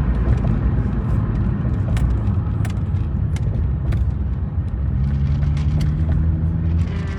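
Car driving, heard from inside the cabin: a steady low rumble of road and engine noise with a few light clicks. From about five seconds in, a steady engine hum rises above the rumble.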